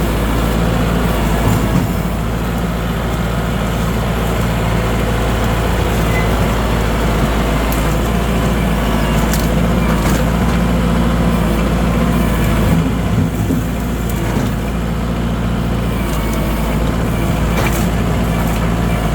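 Tractor engine running steadily as the front bucket with its ratchet rake works into overgrown fence-row brush, with a few brief sharp cracks over it.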